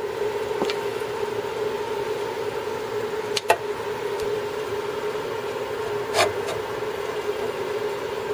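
4-inch portable band saw motor running at a steady pitched hum. Three sharp clicks of handling the saw's metal parts come through it, about half a second in, once about three and a half seconds in (the loudest), and again about six seconds in.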